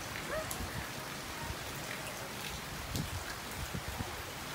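Rain falling steadily on flood water and foliage, with scattered louder drops.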